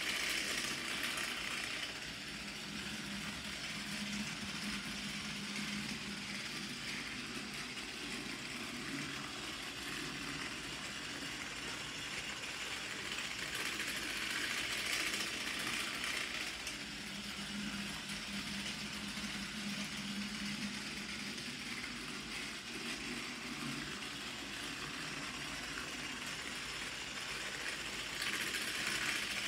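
Battery-powered Plarail toy train (TS-03 Henry) running on plastic track: a steady small electric motor whir with wheels rattling over the rails. It grows louder each time the train passes close by, about every fourteen seconds.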